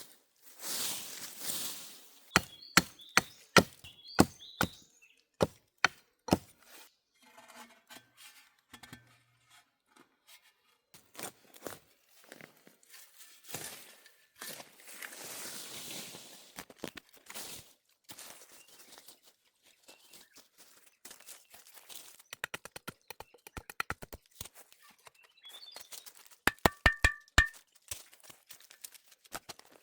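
A hand tool striking repeatedly in irregular sharp chops and thunks, some in quick runs and a few with a short metallic clink. Between the strikes there are stretches of soft scraping or rustling.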